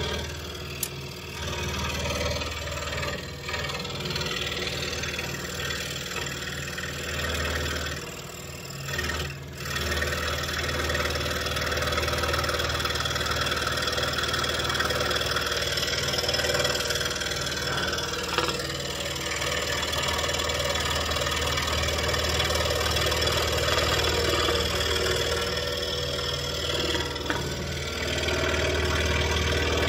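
Scroll saw running, its reciprocating blade cutting through a block of wood with a steady low hum and fast, even chatter. The sound dips briefly twice about eight to ten seconds in, then carries on.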